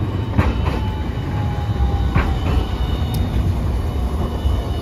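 Hiroshima Electric Railway articulated low-floor tram passing close on a curve: a steady low rumble from its running gear, with a few sharp clacks from the wheels and a faint falling whine.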